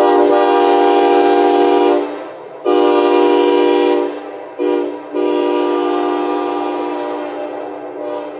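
1977 Nathan AirChime K5LA five-chime locomotive air horn, with a restrictor in its No. 5 bell, blowing a steady chord in four blasts: two long, one short, then a last long one that tails off, the long-long-short-long grade-crossing pattern.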